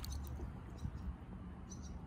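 Quiet calm-river ambience from a kayak drifting with paddles at rest: a low steady rumble, with a faint brief high chirp near the end.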